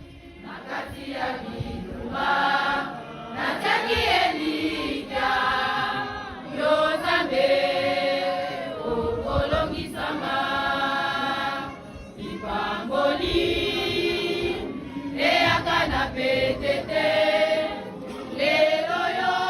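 A choir singing a slow hymn in sustained phrases, several voices together, with short breaks between phrases.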